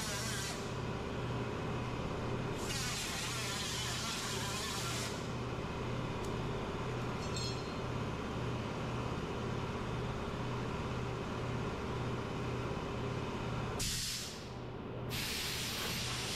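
Compressed air hissing from a hand-held pneumatic body-shop tool on an air hose, switched on in several bursts of a second or two with a long pause in the middle. A steady, evenly pulsing low hum runs underneath.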